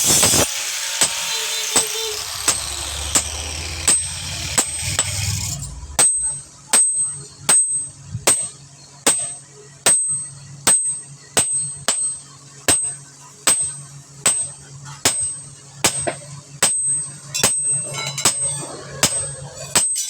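Hammer blows on steel over an anvil, a steady beat of about three strikes every two seconds, each leaving a high metallic ring. For the first few seconds before the steady hammering, a steady rushing noise with a low hum and a few scattered knocks.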